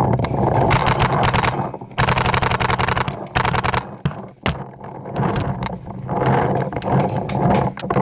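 Paintball markers firing, with a fast string of rapid-fire shots about two seconds in and more scattered bursts of shots later.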